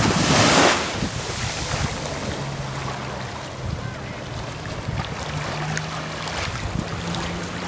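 Small wave breaking onto a sandy shore, a loud wash of surf in the first second, settling into the steady hiss of shallow water washing over sand. Wind buffets the microphone, and a faint low hum runs underneath in the second half.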